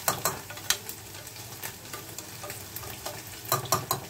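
A metal spoon stirs rice frying in oil in a steel pressure cooker, scraping and clinking against the pot over a steady sizzle. There are a few sharp clinks near the start and a quick run of them about three and a half seconds in.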